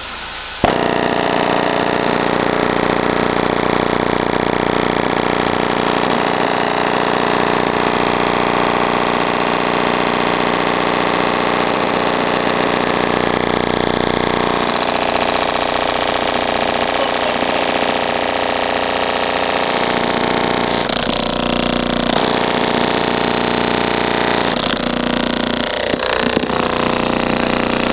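Audio System Radion 12-inch subwoofer driver played hard in free air, without an enclosure, as it is overdriven to blow it: a loud, harsh, distorted buzz and rattle from the flapping cone. The sound shifts about halfway through and changes again in the last few seconds.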